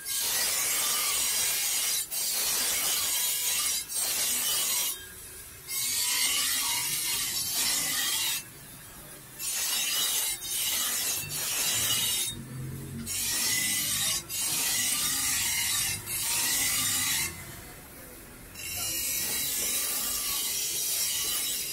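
Steel cleaver blade ground on the spinning abrasive wheel of a bench grinder: a harsh, high grinding hiss in passes of one to a few seconds, dropping away in short breaks as the blade is lifted and repositioned.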